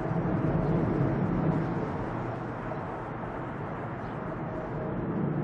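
Boeing 777 twin-engine jet airliner climbing out after takeoff: a low, steady roar of jet engine noise that dips slightly and swells again near the end.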